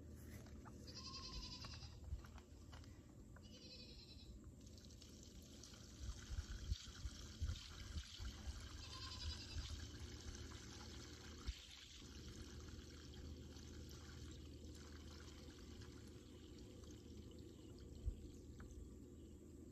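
Water pouring and trickling out of a tipped plastic tub of waterlogged ajuga plants and soil, with a few light knocks of the tub.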